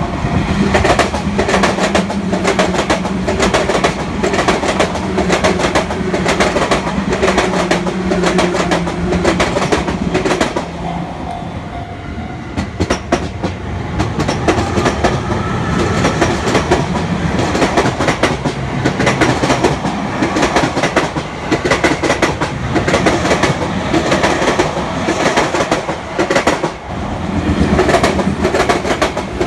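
Train wheels clattering over rail joints, a fast run of clicks over a steady hum. The clatter eases about eleven seconds in, then another run of joint clicks follows.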